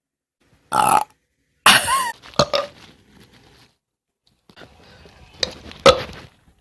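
A person burping: two loud burps in the first two seconds, the second longer with a wavering pitch, then quieter sounds and a couple of sharp clicks near the end.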